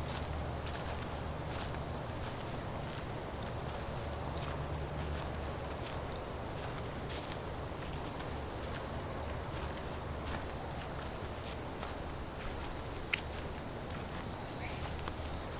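Steady chorus of crickets or other night insects, a continuous high trill, with a few scattered faint clicks and one sharper click about thirteen seconds in.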